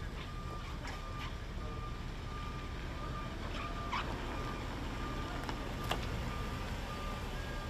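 Low steady rumble of vehicle engines with a thin, steady high electronic tone running through it, plus a few faint clicks.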